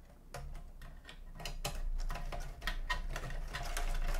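Quick light clicks, taps and rattles of a screw and screwdriver working against the metal chassis of an opened stereo unit, growing busier from about a second in, over a low steady hum.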